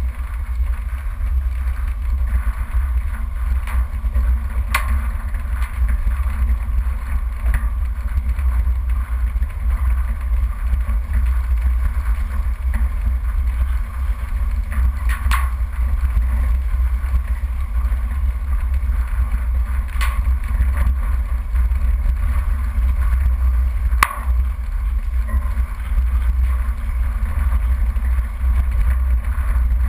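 Off-road 4x4 driving along a rough dirt track: a steady, heavy low rumble of engine and road vibration, broken by four short sharp knocks as the vehicle jolts over the ruts.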